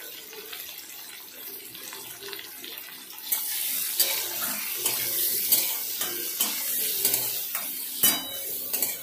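A flat metal spatula scraping and knocking against a steel kadai as chunks of potato, carrot and tomato with dry ground spices are stirred in hot oil. The frying sizzle and the scraping grow louder about three seconds in, with repeated sharp clinks of the spatula on the pan.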